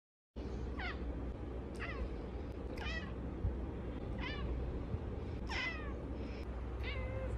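A cat meowing six times, about once a second: short, high calls that each fall steeply in pitch, over a steady low background hum.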